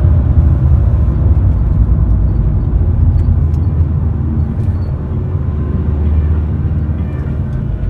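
Cabin noise of a Renault Kangoo's 1.5 dCi four-cylinder diesel, with road and wind noise, as the van slows from about 100 km/h: a steady low rumble that fades gradually.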